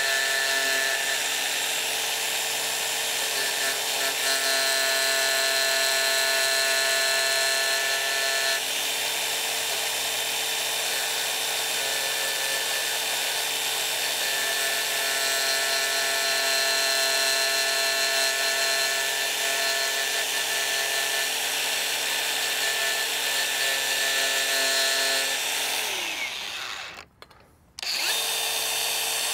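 Angle grinder with a 50-grit sanding disc running steadily while grinding back MDF crown moulding for a cope, its whine changing tone a few times. Near the end it is switched off and winds down, goes quiet for about a second, then starts up again.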